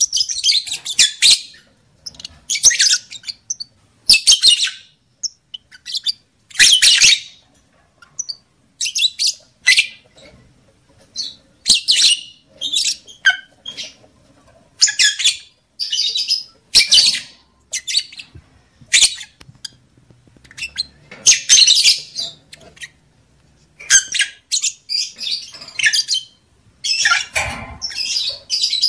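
Lovebirds giving shrill, rapid chattering calls in short bursts of half a second to a second, one after another with brief gaps. This is a lure recording of breeding-mood calls, played to rouse lovebirds to mate.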